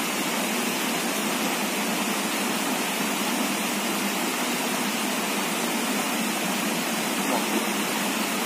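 Rocky stream rushing over stones in small rapids: a steady, even rush of water.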